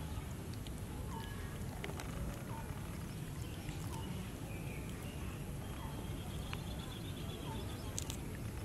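Outdoor ambience with a steady low rumble, over which a short chirping call repeats about once a second.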